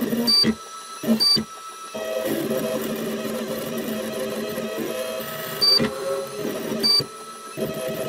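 Stepper motors of a homemade CNC table driving a diamond drag-engraving bit over a phone's back. Short stop-start moves with whining tones and clicks come first, then one continuous move of shifting pitches from about two seconds in to about seven, then a few more short moves.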